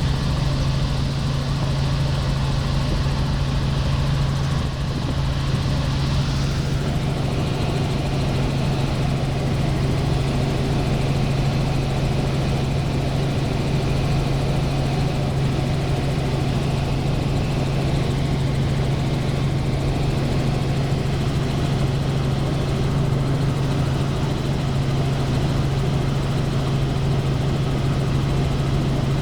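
Helicopter in flight: a steady, unbroken drone of engine and rotor with a strong low hum.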